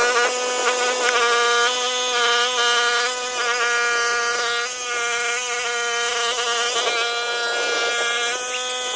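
Mini skid steer running with a steady, high-pitched buzzing whine, its pitch wavering briefly now and then.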